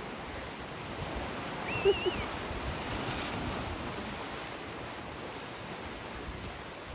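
Sea washing against a rocky shore with wind buffeting the microphone, a steady rushing noise. About two seconds in, a brief high wavering whistle-like call cuts through.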